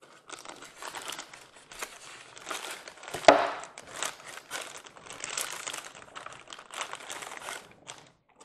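Plastic packing bag crinkling and blue tape being pulled loose as hands unwrap a model train tender from its foam insert, with one sharp, loud crackle a little over three seconds in.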